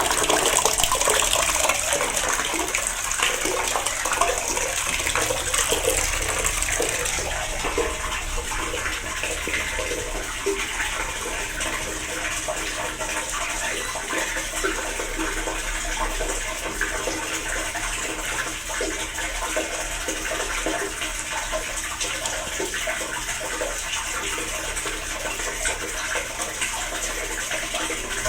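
Water running and splashing continuously in a steady dense stream, a little louder for the first several seconds.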